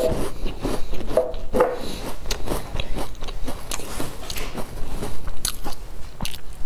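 Biting into and chewing a large crisp sesame-topped cookie: a run of irregular, sharp crunches.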